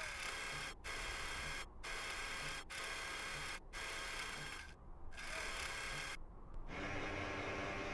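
Whirring of the Curiosity rover's robotic arm and mast motors, as animation sound effects, running in stretches of about a second with brief cut-offs between them, then steady from about seven seconds in.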